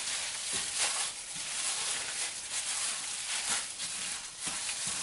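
A hand in a thin plastic glove tossing and squeezing shredded food in a large ceramic bowl: a run of soft rustling, crinkling strokes, about one every half second to a second.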